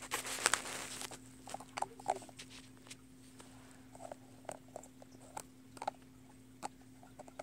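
Fingers handling a small plastic baby bottle and pressing on its teat and collar: a short rustle at first, then scattered small plastic clicks and taps.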